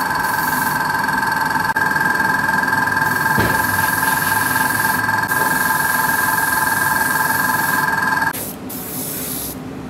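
A small airbrush compressor running with a steady whine, with hissing air that starts and stops in short spells. The motor cuts off about eight seconds in, leaving the air hiss.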